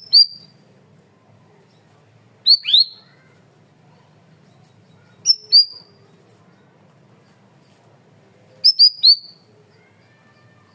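A cucak rawis (bayeman) calling in sharp, high, piercing notes. They come in quick pairs about every three seconds, and in a rapid triple near the end. One note drops steeply in pitch. A faint low hum sits underneath.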